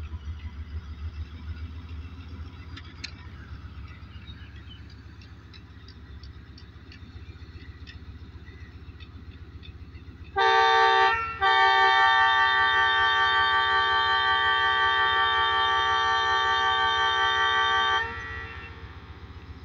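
ZCU-30 diesel-electric locomotive with its diesel engine running in a low rumble. About ten seconds in, its multi-tone horn sounds a short blast, then a long blast of about six and a half seconds: the departure signal.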